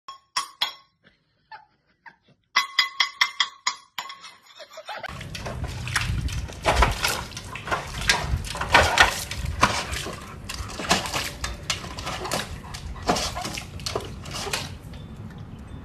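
Large dog pawing in a stainless steel water bowl: a series of splashes and sloshes of water against the metal, lasting most of the stretch. It is preceded by a few sharp clicks and a quick run of about six taps in the first few seconds.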